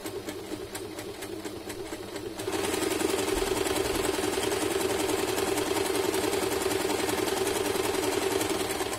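Usha Janome Stitch Magic electric sewing machine running under foot-pedal control, sewing a zigzag stitch through denim. It gets clearly louder about two and a half seconds in and stops right at the end.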